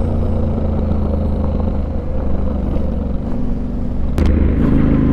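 Yamaha Ténéré 700's parallel-twin engine running steadily while riding, with wind and road noise. A single sharp knock comes a little past four seconds in.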